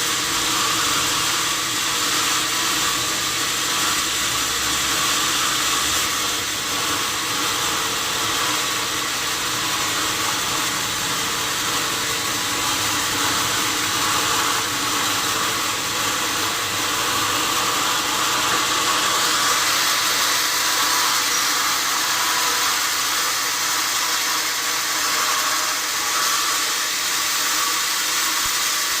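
Sawmill saw running steadily as it cuts through wadang wood: a continuous high hiss with a steady whine under it.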